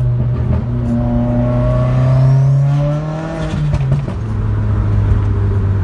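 2015 Subaru WRX's turbocharged FA20 flat-four through a catless J-pipe and single-wall axle-back exhaust, heard from inside the cabin. The engine pulls with its pitch slowly rising, falls away about three seconds in, then settles into a lower, steady drone.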